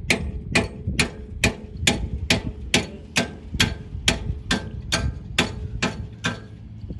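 A run of sharp, evenly spaced ticks, a little over two a second, over a low rumble. The ticks stop about six seconds in.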